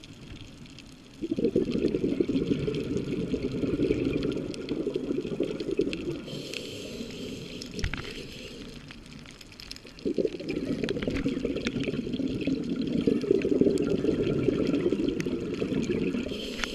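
Scuba diver's exhaled bubbles gurgling out of the regulator underwater: two long exhalations, the first starting about a second in and the second about ten seconds in, with a softer hiss between them as the diver breathes in.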